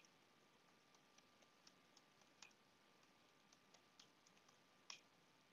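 Very faint computer-keyboard keystrokes, a few scattered clicks over near silence, as a password is typed at a login prompt.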